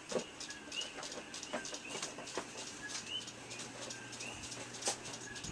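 Small bird chirping over and over in short, slightly rising chirps, with scattered sharp clicks and a faint low hum.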